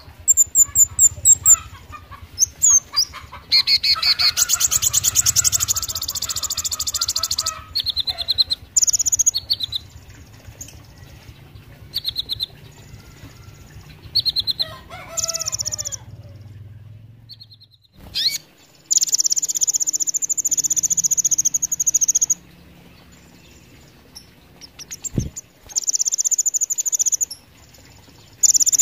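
Kolibri ninja sunbird singing: bursts of very high, rapid trills and sharp chirps, broken by short pauses. A single low thump comes about three-quarters of the way through.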